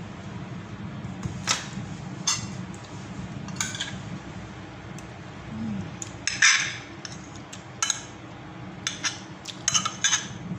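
Metal spoon clinking and scraping against a ceramic plate and bowl as food is scooped up, in scattered short clicks with the loudest scrape about six and a half seconds in. A steady low hum runs underneath.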